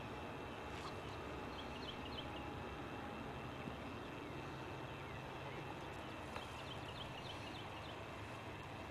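Steady outdoor background hiss and low hum, with two brief runs of quick, high bird chirps, one about two seconds in and another about six to seven seconds in.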